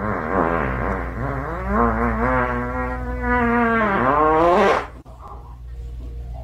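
Small Chihuahua-type dog howling and whining in one long, wavering, buzzy vocalisation, its pitch wobbling up and down. It rises at the end and stops about five seconds in.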